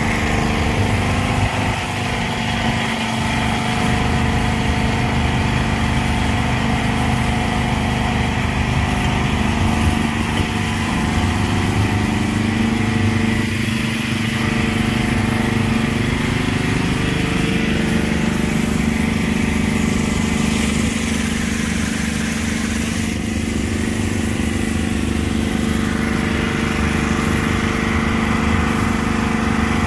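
Gas-engine pressure washer running steadily, with the hiss of water spray over the engine note. The engine note shifts about halfway through.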